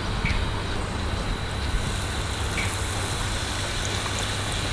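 Battered cod lowered into hot vegetable oil: the oil starts sizzling and crackling about two seconds in and keeps on steadily, over a constant low rumble.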